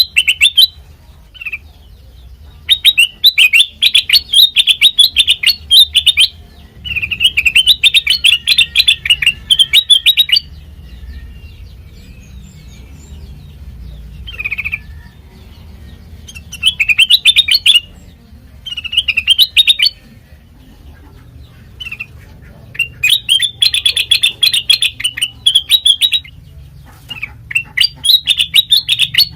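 Kutilang mas, a bulbul, singing in repeated bouts of rapid, high chirping, each run lasting one to three seconds with short pauses between.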